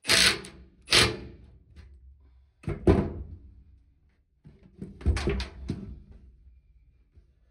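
Sharp knocks and clunks on the sheet-metal tool box as screws and nuts are fitted, each ringing briefly: one at the start and one about a second in, a double knock near three seconds in, then a quick run of about four knocks about five seconds in.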